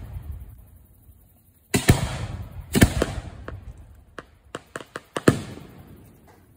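Aerial firework shells firing from mortar racks at close range: three loud booms, the second about a second after the first and the third about two and a half seconds later, each trailing off, with several smaller sharp pops between the second and third.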